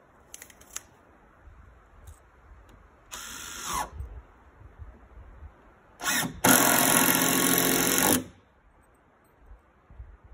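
Cordless drill driving screws through wooden floorboards into the joists. A short run of about a second, its whine dropping in pitch, is followed a couple of seconds later by a louder run of about two seconds.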